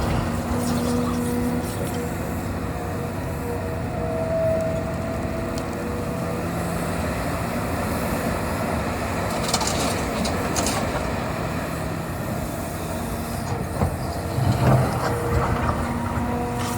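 Hitachi 350 excavator running under load, the diesel engine and hydraulics steady, with whining tones that come and go as the controls are worked. Metal knocks and scraping about ten seconds in and again near the end.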